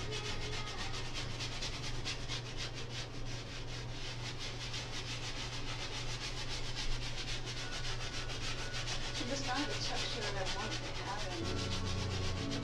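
Paintbrush scrubbing oil paint onto a canvas in quick back-and-forth strokes, a fast, even rasping rhythm, over a low steady hum.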